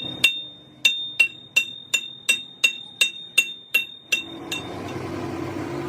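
Hammer striking a steel part about a dozen times, roughly three blows a second, each blow ringing at the same clear metallic pitch; the hammering stops about four and a half seconds in.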